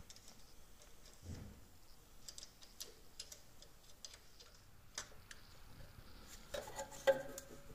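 Faint, scattered small clicks and taps of new contact-breaker points being fitted into a classic Fiat 500's distributor by hand, with a few louder clicks near the end.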